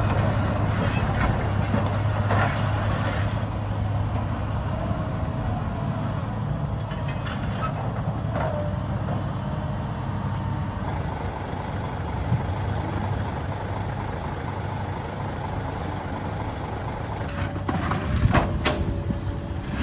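Heavy diesel construction machinery running steadily with a deep hum, with occasional metallic knocks and faint squeaks, and a louder burst of clanking near the end.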